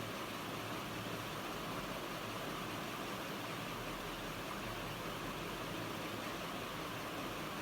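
Electric fan running: a steady, even whooshing hiss of moving air with a faint low hum underneath.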